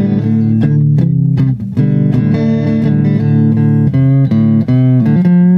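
Guitar music: plucked notes changing every half second or so over a low bass line, with no singing.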